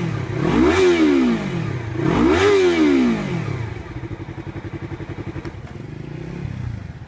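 Motorcycle engine blipped twice through its exhaust, the pitch rising and falling quickly each time, then dropping to an even, pulsing idle for the second half.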